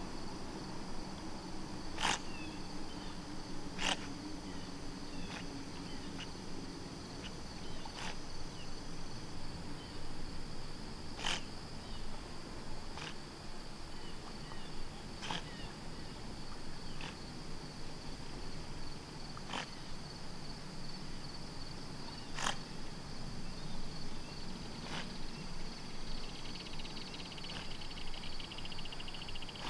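Insects trilling steadily on one high note, joined by a second, finely pulsed insect buzz near the end, with sharp clicks every two to three seconds.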